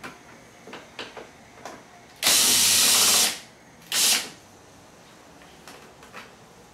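Two bursts of compressed air hissing, one about a second long a little after two seconds in and a shorter one near four seconds, each tailing off as it stops. Faint clicks and taps of hand work between them.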